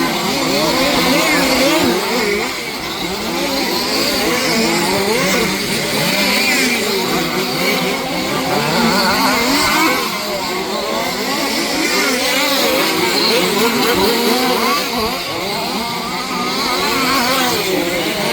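Several 1/5-scale petrol two-stroke off-road RC cars racing, their small engines revving up and down over one another.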